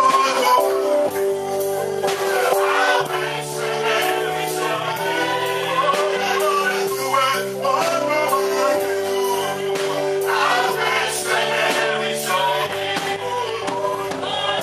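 Gospel worship music: voices singing over instrumental backing, with a long held note and a bass line that changes every second or two.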